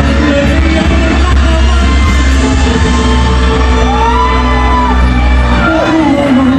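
Live pop music: a male singer sings into a handheld microphone over loud band backing with a heavy, steady bass.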